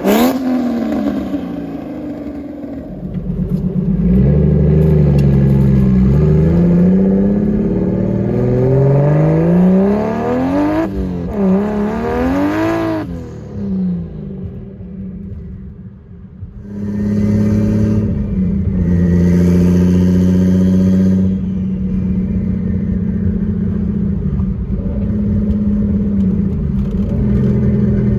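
Turbocharged BMW 325i inline-six with a straight-piped exhaust, accelerating hard through the gears: the engine note climbs and drops back at each shift several times. It eases off briefly past the middle, then pulls again and runs on at a steadier pitch.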